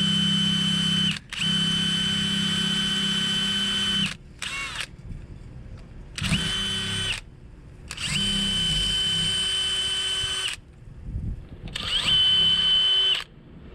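Electric drill running into a steel trailer kingpin lock, its motor giving a steady whine that starts and stops about six times: two long runs early on, then shorter runs of one to two seconds with pauses between.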